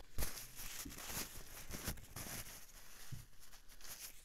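Paper napkin rustling and crinkling in the hands as they are wiped clean, with small irregular crackles.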